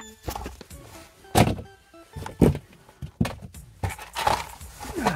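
Irregular knocks and bumps of hands working and handling gear at close range, two of them loud, about a second apart, with fainter bumps after. Music plays faintly in the background.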